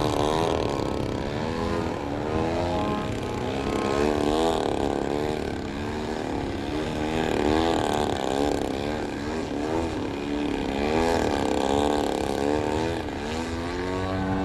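Radio-controlled aerobatic airplane's motor and propeller in 3D flight, its pitch swinging up and down over and over without a break.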